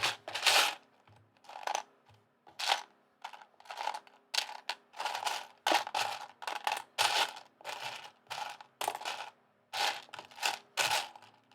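Small plastic Lego bricks clattering and rattling as hands rummage through a pile of loose pieces, searching for one part: irregular, quick clicks throughout.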